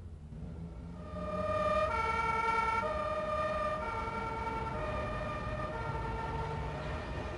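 Two-tone hi-lo siren, alternating between two steady notes about once a second, starting about a second in over a low rumble.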